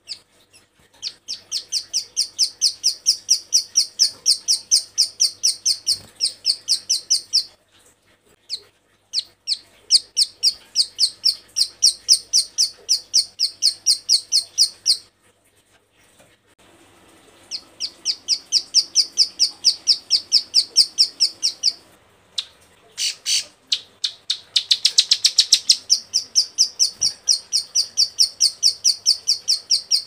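Female ciblek sawah (a prinia) calling in long runs of rapid, dry, high clicking notes, about six a second, in four bursts separated by short pauses. This is the persistent call of a hen in breeding condition, the call that draws in males.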